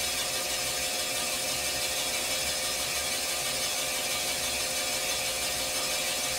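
Cylinder boring machine rough-boring a freshly pressed-in cylinder repair sleeve in an AMC 258 straight-six block: a steady, even hiss of the boring bar cutting, over a steady hum from the machine.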